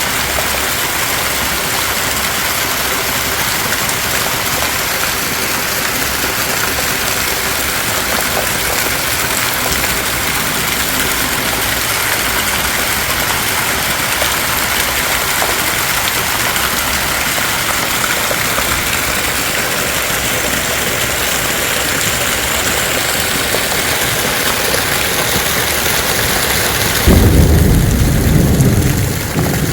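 Heavy rain falling in a steady, even downpour. About three seconds before the end, a loud low rumble of thunder breaks in.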